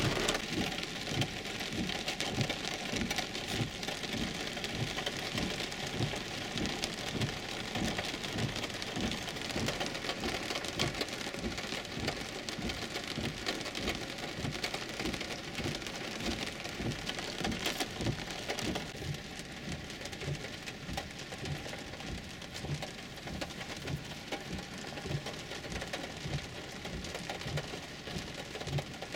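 Heavy rain drumming on a car's roof and windshield, heard from inside the cabin, with a low rumble underneath.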